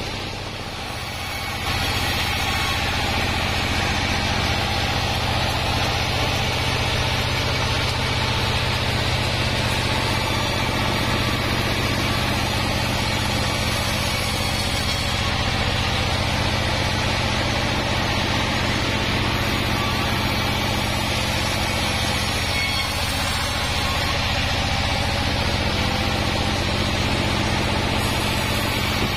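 Diesel-driven band sawmill running steadily: engine hum under the whir of the spinning band saw blade. It dips briefly about a second in.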